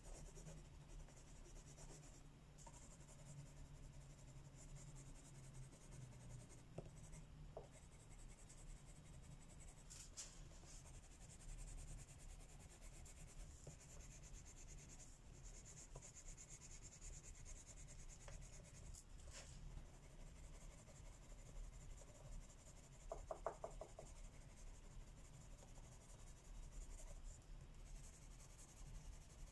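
Faint, steady scratching of a pencil shading on paper while colouring, with a few small clicks and a short rattle about two-thirds of the way in.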